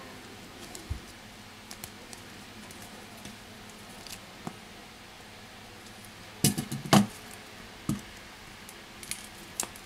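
Handling noise of a phone's mid-frame and a glue tube on a rubber work mat: scattered small clicks and taps, with a louder cluster of knocks about two-thirds of the way through.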